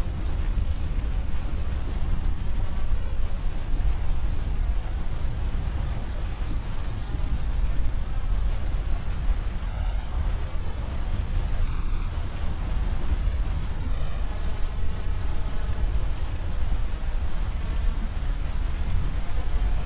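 Steady low rumble with a hiss over it: the room ambience of an indoor swimming pool hall.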